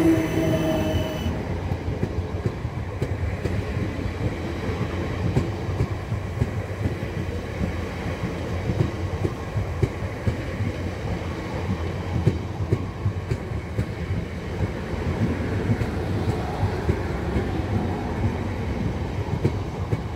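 South Western Railway Class 455 electric multiple unit moving slowly past, its wheels rumbling and clattering on the rails. A steady whine from the train stops about a second in.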